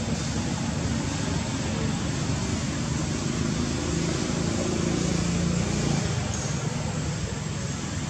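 Steady outdoor background noise: a continuous hiss over a low rumble, a little fuller around the middle.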